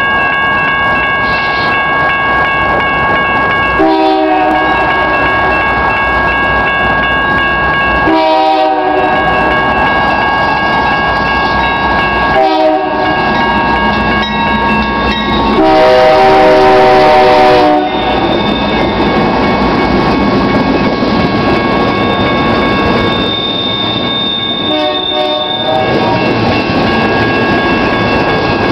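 Multi-chime air horn of a BNSF GE Dash 9 freight locomotive blowing for a grade crossing. There are three shorter blasts about four seconds apart, then a long blast of about two seconds, the loudest, and one more later, over the steady rumble and clickety-clack of the locomotives and freight cars rolling past. Crossing warning bells ring steadily throughout.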